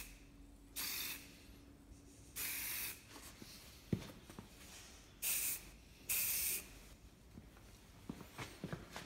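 Aerosol spray paint can hissing in four short bursts of about half a second each as matt black paint is sprayed on. There is a single sharp click about four seconds in and a few light clicks near the end.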